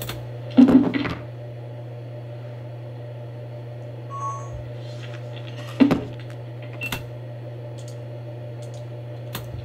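Camera-recorded room audio played back over a steady low hum. It holds a sharp hand clap about half a second in, another clap near six seconds, a lighter tap just after, and a short high beep around four seconds.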